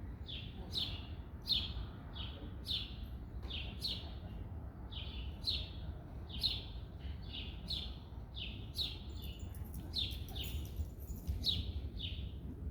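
A small bird chirping over and over, about two short high chirps a second, over a low steady rumble.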